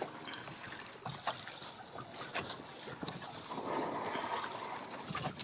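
Sea water slapping and splashing against the hull of a small boat, with wind on the microphone. A louder rushing swell of water noise rises about three and a half seconds in and lasts over a second.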